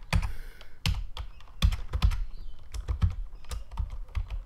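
Computer keyboard keys pressed one at a time in an irregular run of sharp clicks, about two a second: keyboard shortcuts being entered to change views in 3D modelling software.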